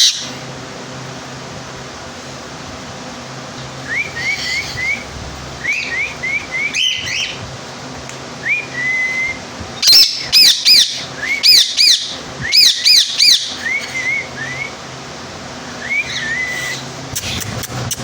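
Rose-ringed (green ring-necked) parakeet calling: quick runs of short rising chirps from about four seconds in, then a louder stretch of shrill, repeated calls in the middle, with a few more chirps near the end.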